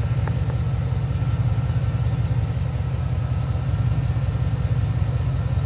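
MaxiTrac 12-volt portable air compressor running steadily, a loud low drone with a fast, even pulsing from its piston pumping.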